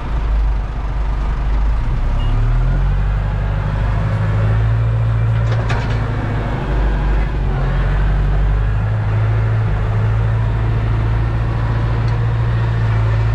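Massey Ferguson tractor's diesel engine running from inside the cab, the revs stepping up about two seconds in and dipping briefly around seven seconds.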